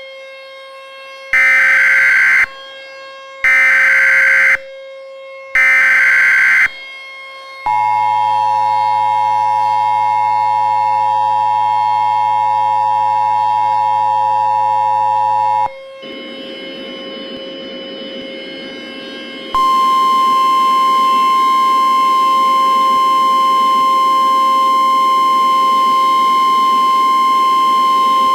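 Emergency Alert System tones. First come three short bursts of SAME header data, about a second apart. The two-tone attention signal then holds for about eight seconds, followed by a few seconds of hiss. The steady single-pitch NOAA Weather Radio warning alarm tone then sounds to the end.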